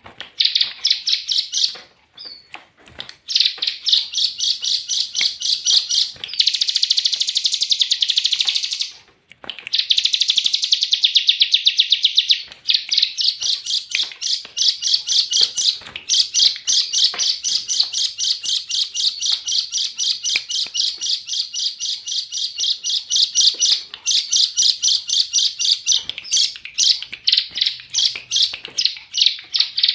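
A songbird singing a long, fast, chattering song of rapidly repeated high notes, with short pauses about 3 and 9 seconds in.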